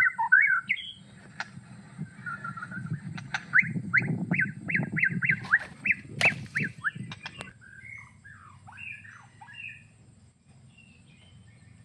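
Songbird calls: a run of quick, evenly repeated whistled notes in the middle, then a few looser chirps. A couple of sharp clicks come over them, the loudest about halfway through.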